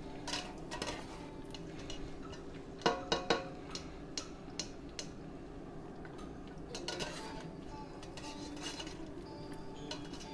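Metal cooking utensils clinking and scraping against a pan. Three sharp ringing clinks come close together about three seconds in, with lighter scattered clinks before and after.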